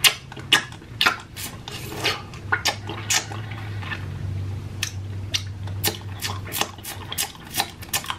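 Close-miked mouth sounds of someone sucking and licking a hard candy cane: wet, irregular lip smacks and clicks. A low steady hum runs through the middle.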